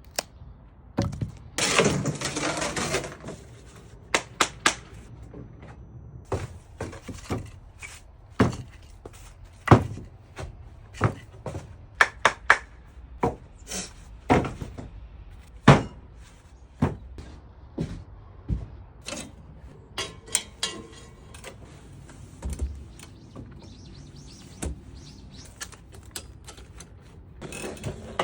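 Wood being chopped for firewood: a series of sharp, dull blows into the wood at an uneven pace, about one a second, with a short rough scraping burst a couple of seconds in.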